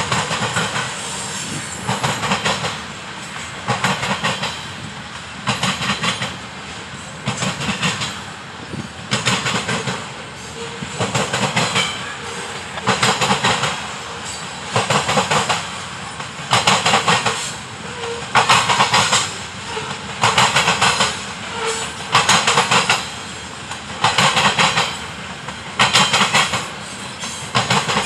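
Freight train of covered hopper cars rolling past, its wheels slamming over a railroad crossing diamond. A clattering burst of wheel impacts comes every one and a half to two seconds, one for each pair of car ends, with a steady rolling rumble between.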